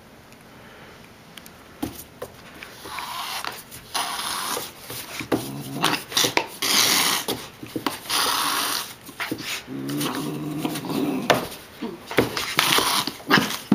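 Cat hissing in repeated bursts of about a second while it spars with a Doberman puppy, with quick scuffles and taps of paws and a short low growl about ten seconds in.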